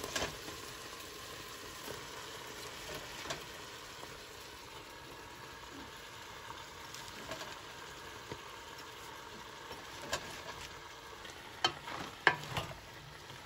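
Tomato sauce sizzling in a stainless steel pot as escarole leaves are dropped in. Near the end, a wooden spoon stirs the greens, with a few sharp knocks against the pot.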